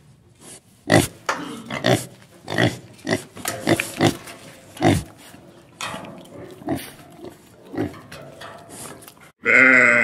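Domestic pig grunting: a series of short grunts, about one a second. Near the end a sheep gives one loud bleat, the loudest sound here.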